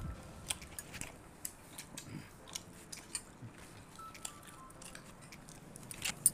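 Close-up eating sounds: scattered soft chewing, lip smacks and mouth clicks as fried snacks are eaten by hand, with one sharper click about six seconds in.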